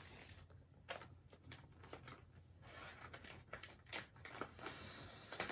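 Faint, scattered crinkles and light taps of a foil food pouch being handled.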